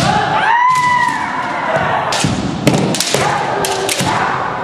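Kendo sparring: one long kiai shout that rises and falls near the start, then a flurry of sharp cracks and thuds from bamboo shinai strikes and stamping footwork on a wooden floor, the loudest about two and a half seconds in.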